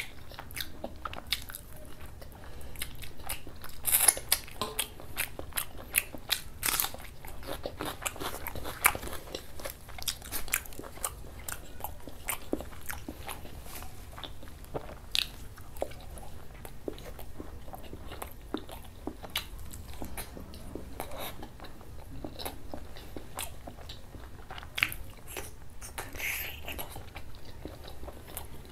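A person chewing and biting mouthfuls of mutton curry with dal puri close to the microphone: a steady stream of wet mouth clicks, smacks and crunches, with the loudest about four and seven seconds in.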